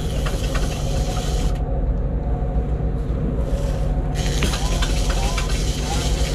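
Boat engine running steadily with a low rumble, with two stretches of hiss over it, one near the start and one from about four seconds in.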